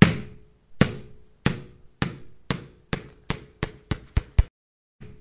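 A ball bouncing: about eleven bounces, each with a short ring, coming quicker and quicker as the ball settles.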